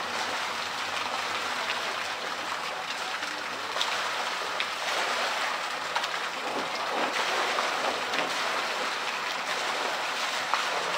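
Pool water churning and splashing, stirred up by a polar bear swimming underwater at the pool's edge. The wash is steady, with a few faint clicks.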